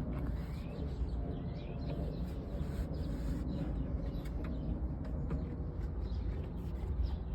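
Small birds chirping now and then in short rising notes over a steady low rumble.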